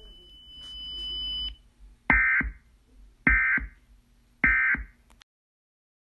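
Emergency Alert System end-of-message data tones: three short, identical warbling bursts of digital data about a second apart, signalling that the alert has ended. Before them a faint noise swells and cuts off about a second and a half in.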